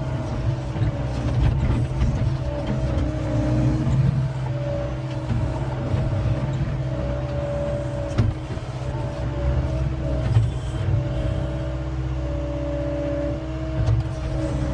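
John Deere 333E skid steer's diesel engine running steadily under hydraulic load, with a steady whine that swells and fades and a few scattered knocks.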